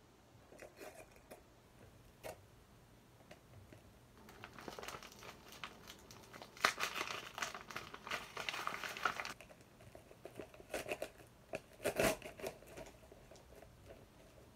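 Parcel packaging crinkling and tearing as it is opened by hand, heaviest in the middle of the stretch, with scattered handling clicks and one louder knock later on.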